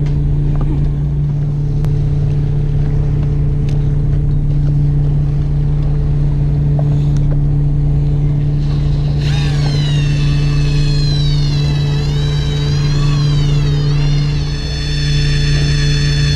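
A boat engine drones steadily. From about nine seconds in, an electric fishing reel's motor whines as it winds in line, its pitch wavering up and down before it settles to a steady whine near the end.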